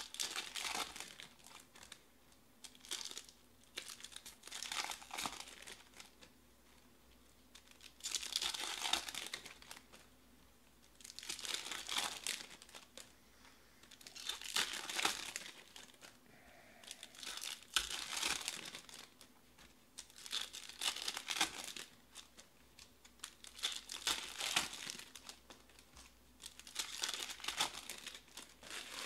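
Foil trading-card pack wrappers crinkling and tearing in repeated bursts about every three seconds as packs are torn open.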